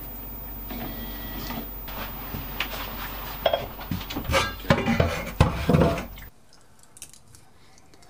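A stainless-steel saucepan and utensils clattering as the pan is emptied into a bowl and taken to the sink, with a run of knocks and clanks that grows louder in the second half and cuts off suddenly about six seconds in.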